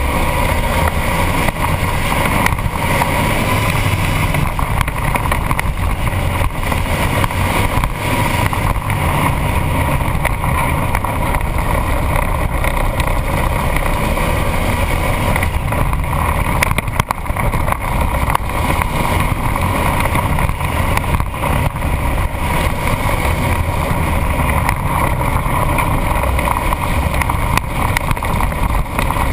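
Off-road vehicle's engine running steadily while it drives along a dirt trail, heard through a camera mounted on its hood.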